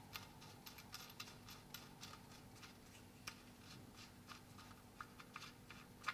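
Near silence with faint, irregular small clicks as the oil drain plug is threaded back into the oil pan by hand.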